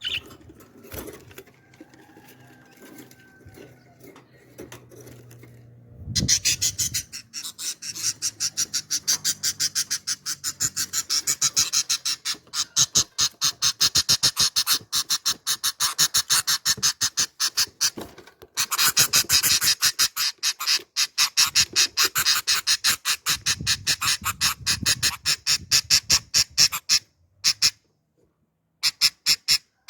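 Baby birds begging: fast, high, repeated cheeps, about five a second, that start about six seconds in, pause briefly near the middle, and stop shortly before the end. The first seconds hold only faint, quieter bird sounds.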